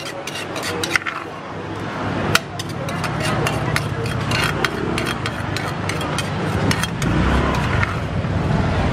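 Wooden pestle knocking in a clay mortar while a spoon scrapes and tosses shredded green papaya for som tum, the knocks coming fast at first and only now and then after a couple of seconds. Voices and a vehicle's engine hum build up behind it.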